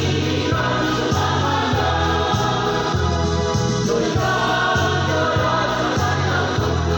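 Church choir rehearsing a religious song: many voices singing together over an accompaniment with a steady low beat about twice a second.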